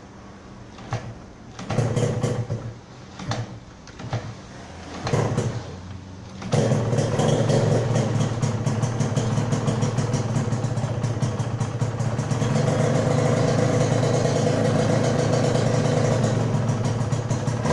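Yamaha TZM 150's single-cylinder two-stroke engine being started: a few short bursts as it is kicked over and fires briefly, then it catches about six seconds in and runs steadily. The owner says its timing is not yet quite right.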